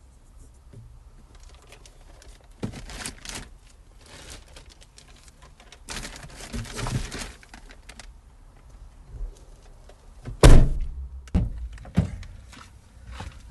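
A series of knocks and thuds, the loudest about ten seconds in, with bouts of rustling and handling noise in between.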